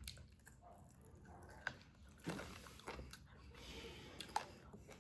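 Close-up chewing and mouth sounds of a person eating spicy chicken gravy rice, with a few sharp wet smacks and clicks along the way.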